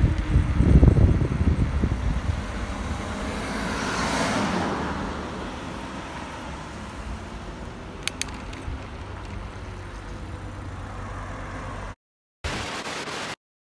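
Wind and handling rumble on a phone microphone while cycling, then a road vehicle driving by, its road noise swelling and fading about four seconds in, over steady street noise; no siren is heard. Near the end the sound cuts out abruptly.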